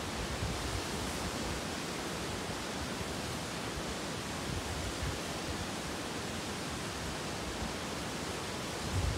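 Tall waterfall pouring down a rock face: a steady, even rushing noise.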